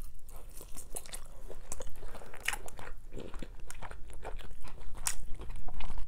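Close-miked mouth sounds of biting meat off a pork rib and chewing it, a dense run of small wet clicks and crackles.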